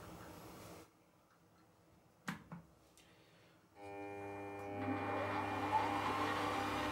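Two short clicks, then about four seconds in a small benchtop metal lathe's motor starts and runs with a steady hum, a faint whine slowly rising in pitch as the spindle speeds up.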